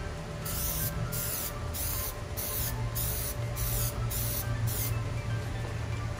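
Aerosol can of black Plasti Dip spraying in about eight short hissing bursts, roughly two a second, as a coat is laid on, stopping about five seconds in.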